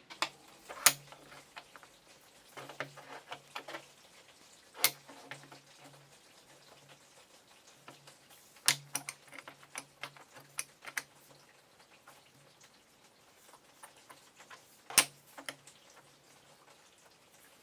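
Hard clicks and knocks, four loud ones several seconds apart among clusters of lighter ticks, with a faint low hum in short stretches.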